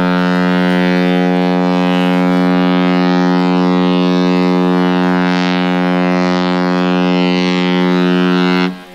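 The MSC Seaview cruise ship's horn giving one long, steady blast on a single note. It cuts off abruptly near the end.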